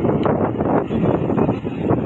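Wind buffeting the microphone, a loud, uneven gusting noise.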